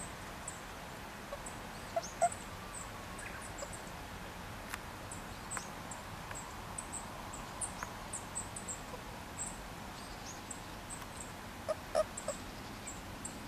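Frogs in a shallow ditch calling with short low notes in clusters of two or three, about two seconds in and again near the end. Small birds chirp high and often throughout.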